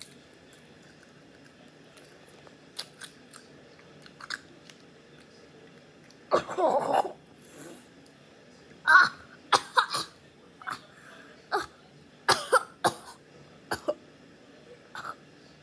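A person eating spicy chips, with a few faint crunches in the first seconds, then coughing and clearing his throat in a string of short, loud bursts from about six seconds in, his throat burning from the chips' heat.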